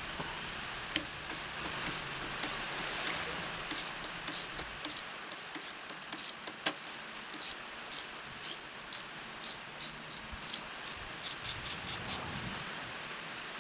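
Hand ratchet clicking in short strokes as a bolt on the front sprocket cover is undone, the clicks coming faster near the end before stopping. A steady hiss of rain runs underneath.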